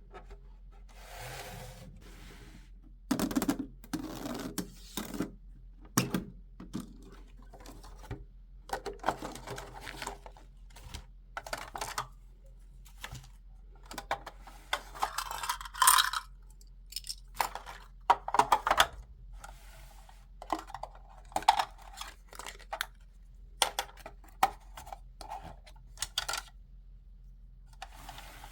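Hands unboxing a Barbie doll set: small plastic toy pieces clicking and tapping against each other, with short stretches of rustling and crinkling packaging in between.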